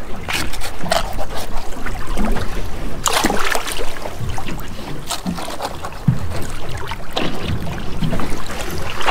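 Water splashing and sloshing against the boat's side where a landed yellowfin tuna is held at the waterline to be unhooked and bled, with irregular knocks and rustles and a louder splash about three seconds in.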